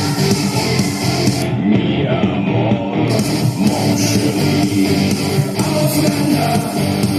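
Rock music with guitar played through a speaker with a Melodavid Piccolo 28S tweeter. All the treble above about 4 kHz drops out about a second and a half in and comes back about three seconds in, as the tweeter is switched off and back on.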